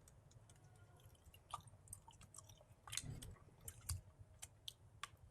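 Faint close-miked chewing of pork ribs stewed with radish: irregular small wet mouth clicks and smacks.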